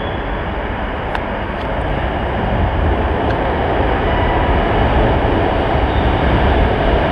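Metro train running through the station without stopping: a steady rumble that grows louder as the carriages come alongside the platform.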